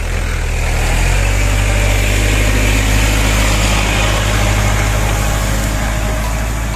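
Farm tractor engine running steadily, its low hum stepping up about a second in, under a steady hiss of heavy rain.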